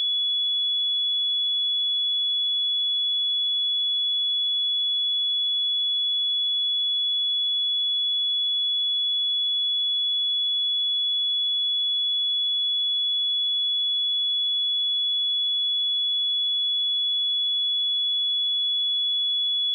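A pure 3397 Hz sine-wave test tone, a steady high-pitched beep held at one pitch and one level throughout.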